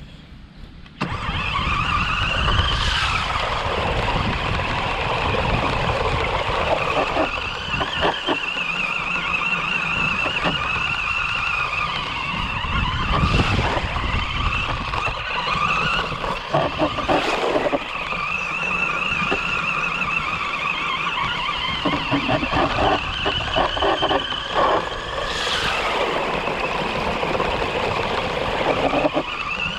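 Bwine C11 RC truck's dual electric motors and gearbox whining steadily under drive, heard close up from a camera riding on the truck, starting about a second in. A low rumble from the wheels over rough ground runs underneath, with a few knocks from bumps.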